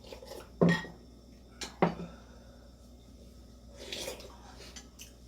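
Eating utensils knocking against bowls and dishes during a meal: a loud clink about half a second in, two quicker clinks near the two-second mark, then a softer scrape around four seconds.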